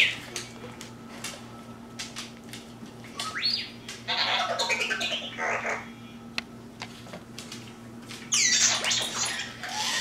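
Toy R2-D2 robot making its electronic beeps and whistles: a rising whistle about three seconds in, a warbling chatter of beeps soon after, and another burst of sweeping whistles near the end.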